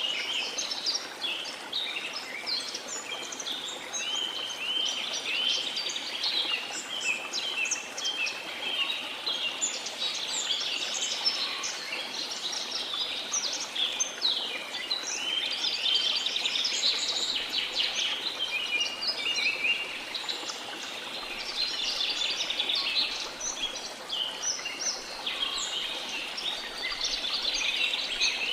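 Many rainforest birds chirping and singing at once, a dense, unbroken chorus of short whistles and trills, over the steady rush of a waterfall.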